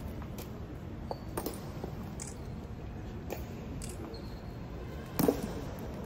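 Low steady rumble of background ambience with scattered, irregular clicks and taps; the loudest, a short double knock, comes about five seconds in.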